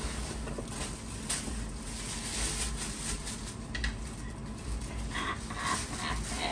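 Tissue paper rustling and crinkling as it is pulled out of a gift bag, in quick irregular rustles.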